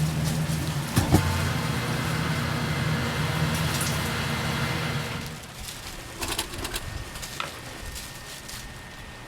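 A steady low motor or engine hum that cuts off about five seconds in, followed by scattered clicks.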